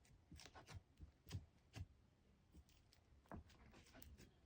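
Faint, irregular soft clicks and pops of thick jelly slime being worked by hand, with air pockets popping as air is mixed in.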